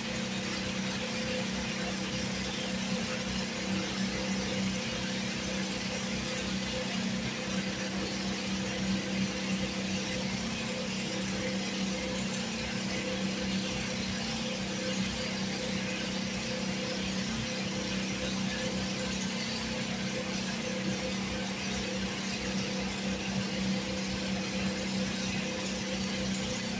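Steady low hum of electric generators, running because grid power is out in a blackout, under the even hiss of rain falling on the wet street and leaves.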